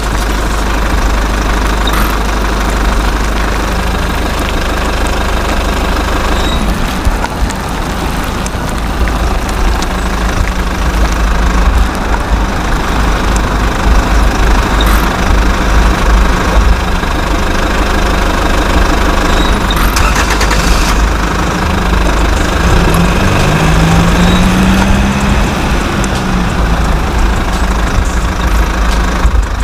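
Motor running steadily with a low, pulsing thrum, with one brief rise and fall in pitch about three-quarters of the way through.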